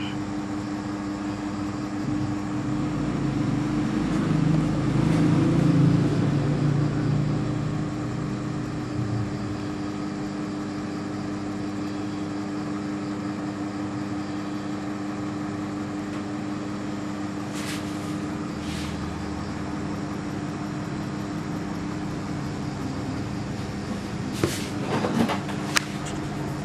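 Steady background hum. A low rumble swells a few seconds in and fades, and a few sharp clicks come in the second half.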